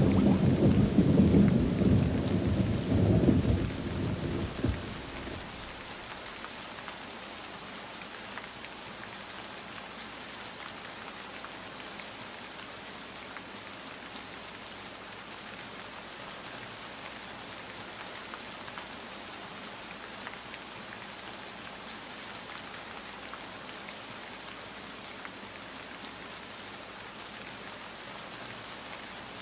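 A rolling rumble of thunder over heavy rain, dying away about five seconds in, followed by a steady, even patter of rain.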